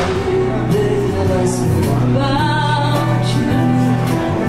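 A woman singing a melodic line into a microphone, amplified through a PA, with a live band accompaniment that includes guitar.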